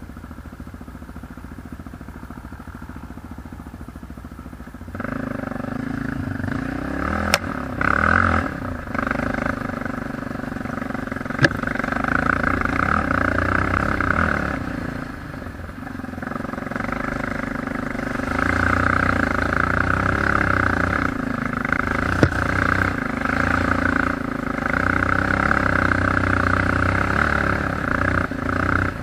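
ATV engine running, quieter for the first five seconds, then louder and revving up and down as the quad is ridden. A few sharp knocks cut in along the way.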